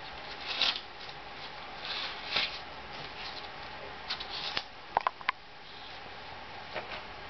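A puppy tearing and rustling shredded toilet paper and mouthing the cardboard tube, in a few short scratchy bursts. About five seconds in come three quick sharp clicks, the loudest sounds here.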